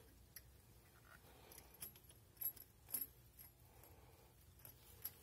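Faint metallic clicks and clinks, a few scattered taps with two sharper ones about two and a half and three seconds in: a steel pad-retaining pin and pad hardware being worked into a Brembo brake caliper by hand.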